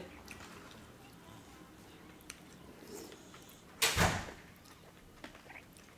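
A loud crunching bite into crispy Nashville-style hot fried chicken about four seconds in, amid faint chewing and small eating noises.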